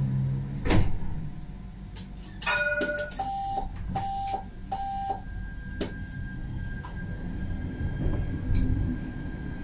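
Tram's door-closing warning: a short stepped chime, then three short beeps under a second apart, then a knock as the doors shut. A steady high electric whine starts after it, over a low rumble.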